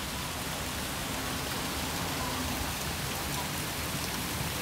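Water cascading down illuminated water-wall fountains: a steady, even splashing hiss.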